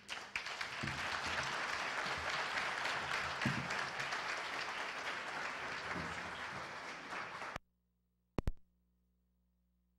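Audience applauding steadily, cutting off abruptly about seven and a half seconds in; a brief double click follows, then near silence.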